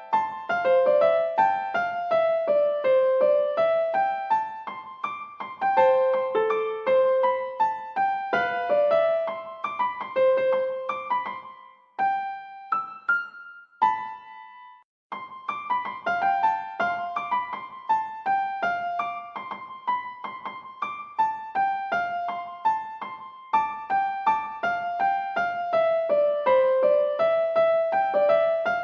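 Background music: a light piano melody of quick notes, thinning to a few scattered notes about twelve seconds in, then picking up again about three seconds later.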